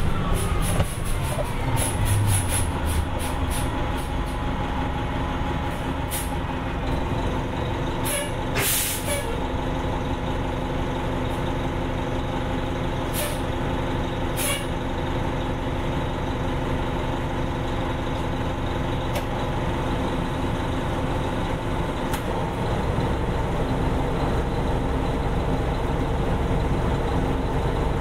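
Detroit Diesel Series 50 diesel engine of a 1989 Gillig Phantom transit bus running at a steady speed. Short hisses of air brakes come several times, the longest about nine seconds in, and light ticks come in the first few seconds.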